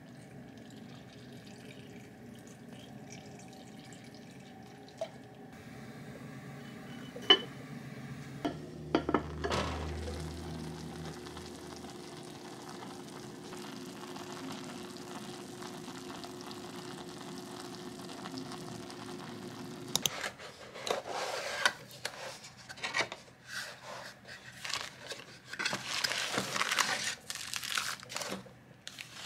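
Kitchen sounds while a hot pot cooks on the stove: a steady low hiss with a few sharp clicks and knocks of the clay pot about seven to ten seconds in. Then, from about twenty seconds in, tissue paper and plastic wrapping crinkle and rustle irregularly as a cardboard box is opened and a vertical laptop stand is unwrapped.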